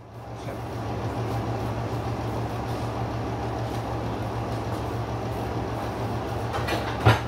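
Steady machine hum with an even rushing noise, rising in at the start and then holding level; a short knock just before the end.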